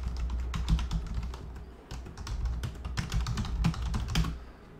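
Typing on a computer keyboard: runs of quick keystrokes in uneven bursts, stopping a little after four seconds in.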